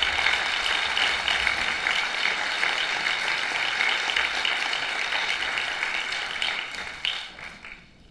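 Crowd applauding: dense clapping from many hands that dies away over the last second.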